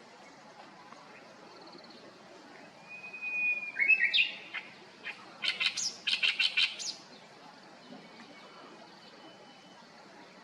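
Oriental reed warbler singing one lively phrase about three seconds in. It opens with a thin whistled note and ends in a rapid run of about eight chattering notes, finishing before seven seconds.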